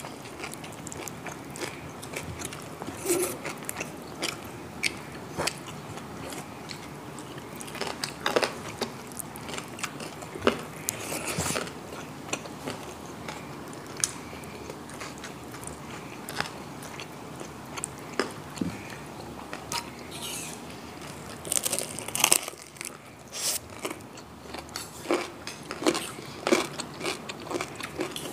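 Close-up biting, crunching and chewing of crispy deep-fried pork knuckle, the fried skin crackling in irregular crunches, with a thicker run of crunches a little past two-thirds of the way through.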